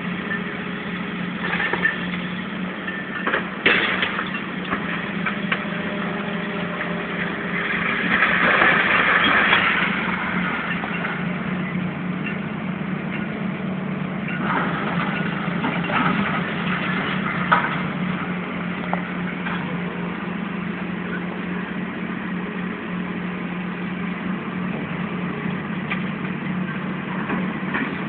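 Engine of heavy demolition machinery running steadily, with a few sharp knocks and a louder rush of noise about eight seconds in that lasts about two seconds.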